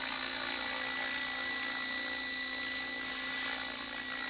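Radio-controlled model helicopter hovering in GPS position-hold mode: a steady whine of rotor and drive with several fixed tones, unchanging in level.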